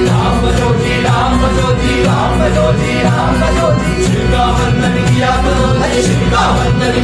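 A group of male voices singing a song together, accompanied by tabla, acoustic guitar and keyboard.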